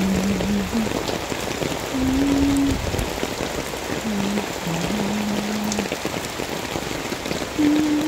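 Steady typhoon rain falling on leaves and a wet concrete path. A few low held notes, stepping up and down like a simple tune, sound over the rain at times.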